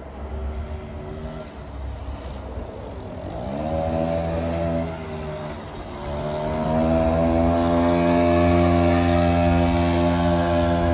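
An old mini chopper's small gas engine revving as it is ridden. The pitch climbs about three and a half seconds in, drops back, then rises again and holds high and loud as the bike passes close. The engine is over twenty years old and not running great.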